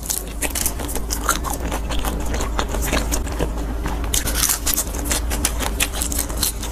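Crunching and chewing of a deep-fried shrimp eaten shell and all, a dense run of quick, crisp cracks.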